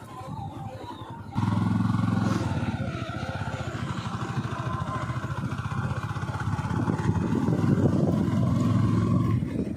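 Motorcycle engine running steadily while riding, its firing pulses heard as a fast, even low throb. It gets suddenly louder about a second and a half in and eases off near the end.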